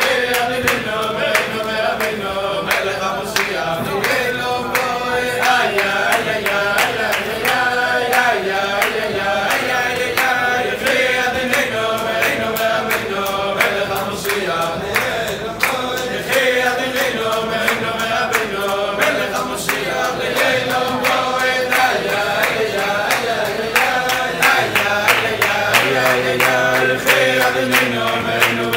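A group of men singing a Hasidic melody together, with steady rhythmic hand clapping in time.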